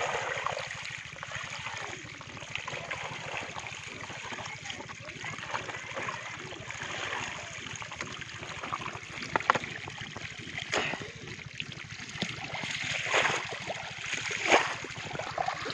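Shallow muddy water running out through a small channel, with many small puti (barb) fish flapping and splashing in it. A few louder splashes come near the end.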